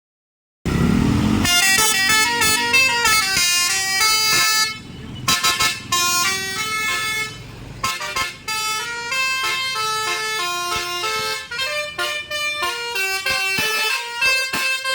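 Bus 'telolet basuri' horn, a set of air horns driven by a tune module, playing a quick melody of short stepped notes, with a couple of brief pauses. A short low rumble comes just before the first notes.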